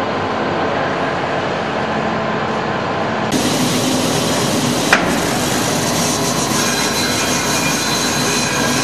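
CNC band saw running, its blade cutting a solid wood block for a curved chair back: a steady, loud machine noise that turns brighter a little over a third of the way in, with one sharp click near the middle.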